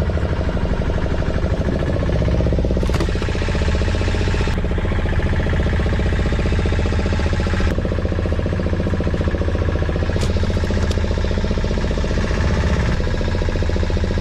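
Fishing boat's engine running steadily, with a low, even pulsing drone. A few sharp clicks sound over it.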